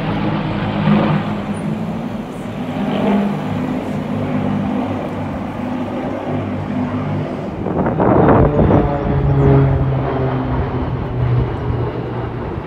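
Propeller-driven piston engines of a formation led by an Avro Lancaster bomber droning overhead, several steady low hums overlapping. A louder rush of noise rises over the drone about eight seconds in.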